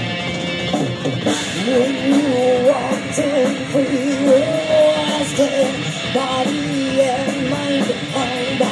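Heavy metal band playing: distorted electric guitars, bass and drums, with a wavering lead melody on top. The cymbals come in fuller about a second in.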